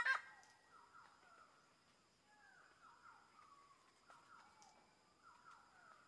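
Birds calling: a loud, harsh call cuts off right at the start, then faint, short falling notes repeat about twice a second over a faint steady high tone.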